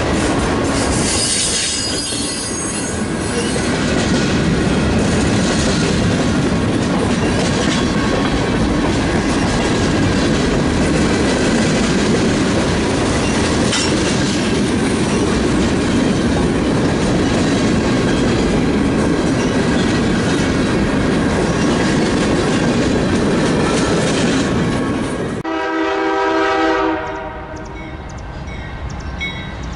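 Freight train rolling past, its wheels making a steady rumble on the rails, with a burst of high-pitched wheel noise near the start. About 25 seconds in, the sound cuts to a locomotive air horn sounding briefly in a chord of several tones, which then fades.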